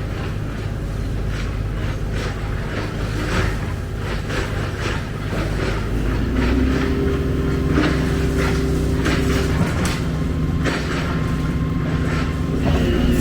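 Excavator's diesel engine running under load, with repeated clanks and knocks from the machine at work. About halfway through the engine picks up and runs harder.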